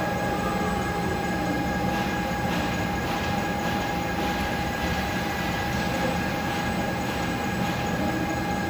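Concrete 3D printing machinery running continuously: a steady mechanical rumble with a constant high-pitched whine.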